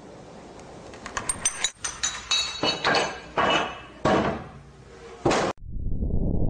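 Chain of progressively larger dominoes toppling: faint light clicks about a second in, then about half a dozen clacks, each heavier than the last, ending with the largest slab falling about five seconds in. The sound then cuts abruptly to a low, steady rumble of a large explosion.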